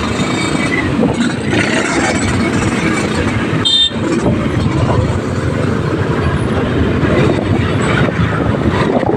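Loud, steady rumble of vehicles, with one short high-pitched horn toot about four seconds in.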